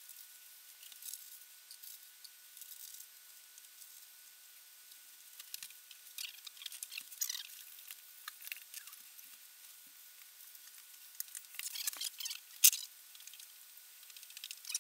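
Pencil scratching on paper in short, irregular strokes as light sketch lines are drawn, with a sharp tick about three quarters of the way through. A faint steady high tone runs underneath.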